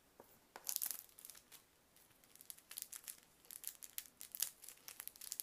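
Crinkling, tearing crackles of a dbrand vinyl skin piece being handled and peeled off its backing sheet, an irregular run of sharp crackles starting about half a second in.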